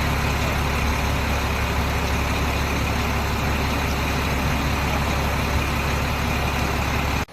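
Steady, loud drone of a running engine or machine, unchanging throughout, cutting off abruptly at the end.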